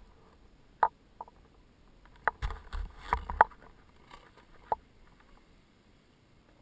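Snowboard and helmet-mounted camera picking up sharp knocks and scrapes as the rider pushes off onto the groomed run, with a cluster of knocks over a low rumble of wind buffeting on the microphone around the middle.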